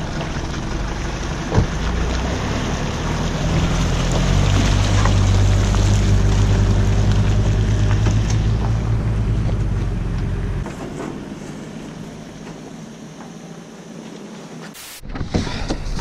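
Pickup truck engine running under load as it pulls an empty boat trailer out of the water, growing louder for several seconds, then dropping away sharply about two-thirds of the way in. A short knock about a second and a half in.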